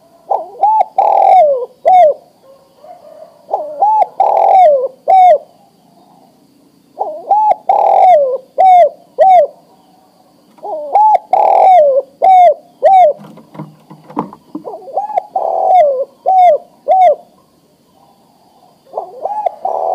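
Male spotted dove giving its cooing mating call to a female: repeated phrases of four or five coos each, a new phrase every three to four seconds.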